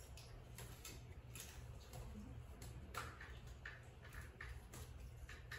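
Faint, quick light clicks and ticks, a few each second at an uneven pace, over a low steady room hum.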